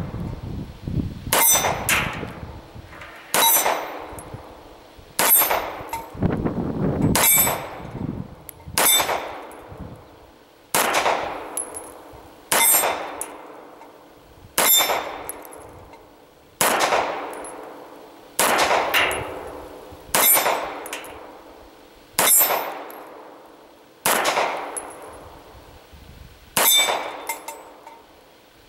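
A 9mm EAA Witness pistol fired in slow, steady single shots, about fifteen, roughly one every two seconds. Each report is followed by the ringing clang of a steel target plate being struck.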